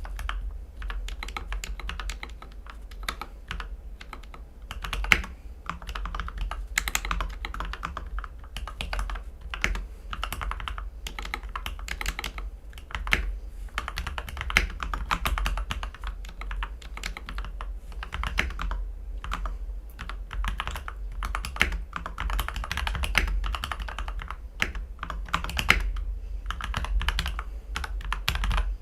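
Continuous typing on a mechanical keyboard fitted with Gateron Ink V2 Black linear switches, lubed with GPL 205 and filmed, on an aluminium plate with tape and PE foam mods. It makes a dense, uneven stream of keystroke clacks, with a few louder strokes here and there.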